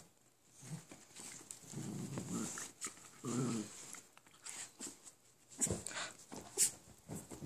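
Dogs playing together: a few short, low growly dog vocalizations about two and three seconds in, then several sharp taps and knocks from the scuffle near the end.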